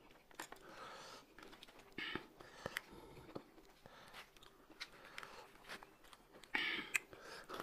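Quiet eating sounds at the table: chewing, light clicks of chopsticks and crisp rustling of fresh lettuce leaves being handled, the loudest rustle near the end.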